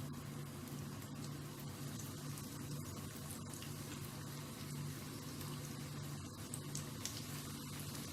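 Breaded fish fillets frying in plenty of hot oil in a frying pan: a steady sizzle with small scattered crackles.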